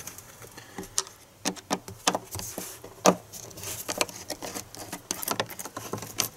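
Irregular clicks and light rattling ticks of a flathead screwdriver turning a hose clamp's screw to loosen the plastic intake tube at the throttle body.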